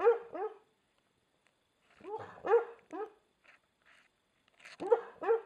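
An American Staffordshire terrier barking in its sleep. Three bouts of a few short barks each, about two seconds apart, each bark rising then falling in pitch.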